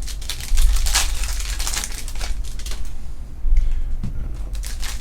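Foil trading-card pack wrappers crinkling and crackling as packs are torn open and the cards are handled, in quick irregular rustles.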